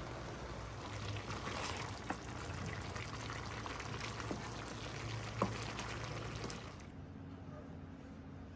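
Food simmering in a metal pan with a wet, bubbling hiss, and a few sharp taps of a spatula against the pan. About seven seconds in it gives way to a quieter hiss with a faint steady hum.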